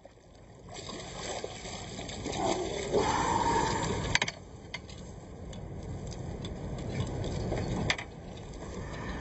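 Water splashing and sloshing as a hooked American shad thrashes at the surface beside the boat, loudest a few seconds in, with a couple of sharp knocks about four and eight seconds in.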